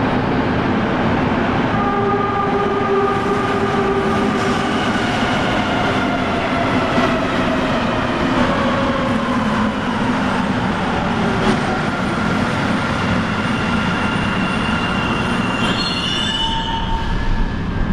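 Mexico City Metro train running past along the platform: a loud, steady rumble with whining motor tones that slide downward in pitch through the middle, and a brief high squeal near the end.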